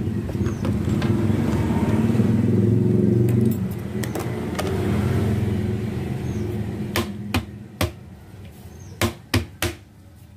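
A motor vehicle engine running for the first few seconds, then fading away, followed by a handful of sharp, irregular knocks.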